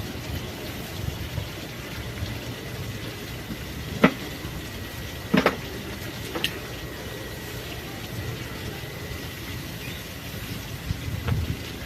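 Kitchen utensils and dishes knocking a few times, about four seconds in, a double knock a second later, another a second after that and one near the end, over a steady background hiss.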